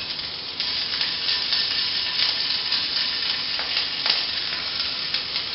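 Minced garlic and ginger sizzling in hot oil in a non-stick pan while being stirred with a spatula. The sizzle is a steady hiss that gets louder about half a second in.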